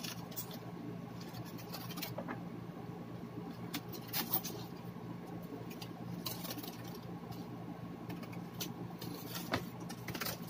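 Foil and paper burger wrapper rustling and crinkling as it is peeled open by hand, with several sharp crackles scattered through, over a steady low hum.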